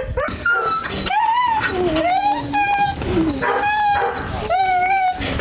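A kenneled dog whining and howling in about six drawn-out, wavering, high-pitched calls that rise and fall. It is vocalising for attention, excited at the sight of people.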